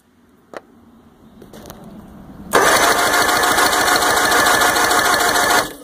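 Electric starter cranking a 1998 Johnson 115 hp two-stroke outboard over for about three seconds without it firing, spinning it for a compression test on the number one cylinder. It starts suddenly a little over halfway through and cuts off just before the end, after a single faint click about half a second in.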